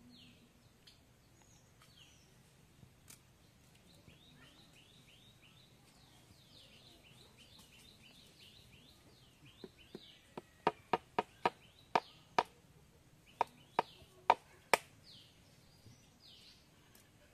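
Birds chirping, then about a dozen sharp taps in quick succession a little over halfway through, from eggs being knocked against a steel bowl to crack them.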